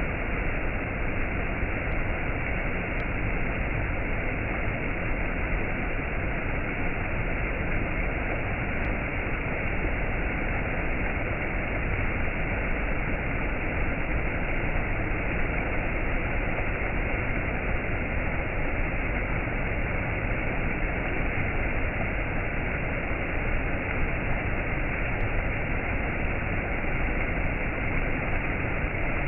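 Steady, even rushing noise with no distinct events or rhythm, unchanging throughout.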